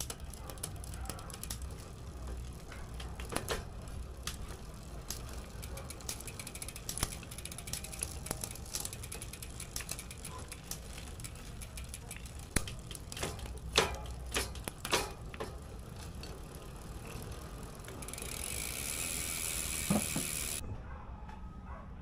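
Trek 8500 mountain bike's drivetrain clicking and ticking as the chain and cranks are worked, with a few louder clicks about two-thirds of the way through. Near the end a spray can hisses for about two and a half seconds, with a knock during it.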